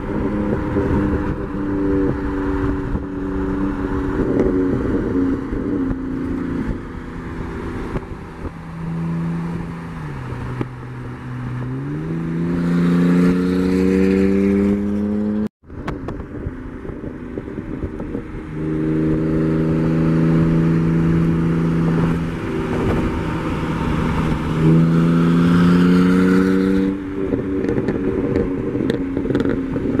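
Car engine running under load while driving, holding a steady note and then rising in pitch twice as the car accelerates, over road and wind noise. The sound cuts out briefly about halfway through.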